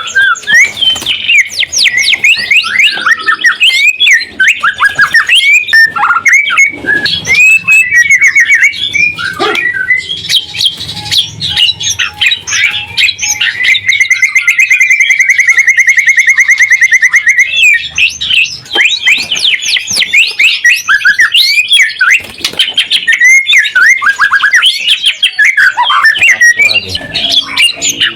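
White-rumped shama (murai batu) singing loudly and without a break: a rapid, varied run of whistles and chattering notes, with a fast, even trill of one repeated note lasting about three seconds in the middle.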